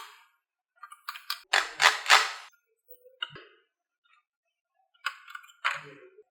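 Marbles rolling and clattering down a HABA marble run, in several separate bursts of rattling and sharp clicks and knocks as they strike the track pieces; the loudest clatter comes about two seconds in, another group near the end.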